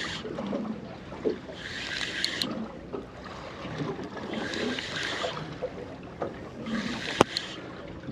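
Sea water lapping against the hull of a small drifting boat, swelling and fading every couple of seconds. There are a few sharp knocks, the loudest near the end.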